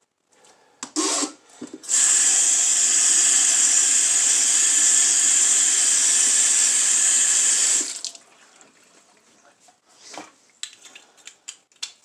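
Kitchen faucet running into a stainless steel sink, the stream splashing over a small plastic cap held under it; the water comes on about two seconds in and is shut off about six seconds later. A few light knocks and clicks before and after.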